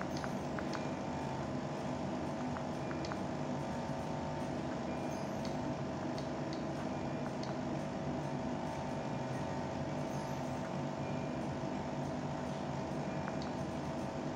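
Steady mechanical hum made of several held tones, with faint scattered clicks and a few brief, faint high beeps.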